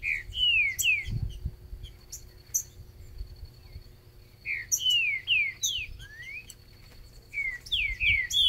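A green-winged saltator (trinca-ferro) sings three phrases of quick, loud, down-slurred whistles, with short pauses between them.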